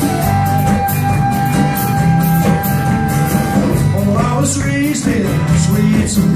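Live rock band playing an instrumental intro. A flute holds one long note for the first few seconds over acoustic guitars, electric bass, drum kit and congas.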